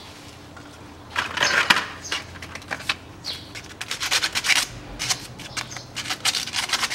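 Small metal tools and parts clinking and clattering as they are picked up and handled, in quick uneven runs of sharp clicks starting about a second in.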